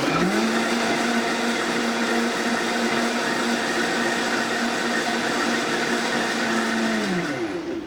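Countertop blender blending a smoothie of frozen berries and milk: the motor spins up, runs at a steady pitch, then winds down as it is switched off near the end.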